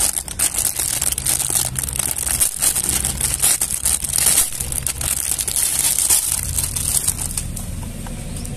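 Thin clear plastic packaging bag crinkling and crackling as it is handled and pulled open around a soft rubber toy. The crinkling dies down about six and a half seconds in, leaving a low steady rumble.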